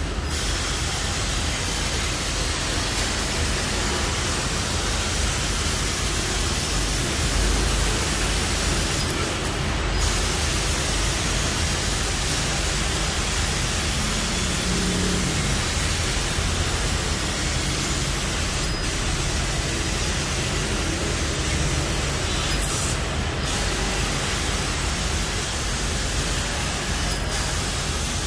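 CNC laser cutter cutting 2 mm steel sheet: a steady hiss from the cutting head's assist-gas jet over a low machine hum, with a couple of brief sharper hisses.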